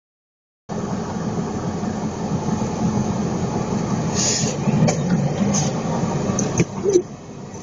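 A car driving on a snowy road, heard from the dashcam inside it: a steady low rumble of tyres and engine. A few sharp clicks come in the second half, then a sharp knock, the loudest sound, after which the rumble drops to a lower level.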